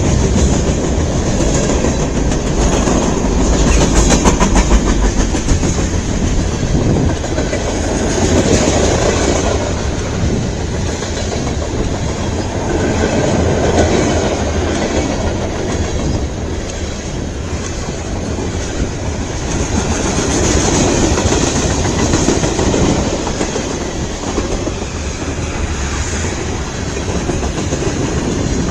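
CN freight train's cars passing at speed, a continuous rumble with wheels clattering over the rail joints, swelling and easing every few seconds.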